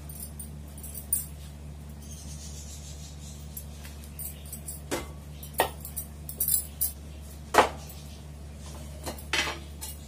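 Wooden rolling pin rolling and knocking on a countertop as a roti is rolled out from a dough ball: scattered sharp knocks and clicks, the loudest about seven and a half seconds in, over a steady low hum.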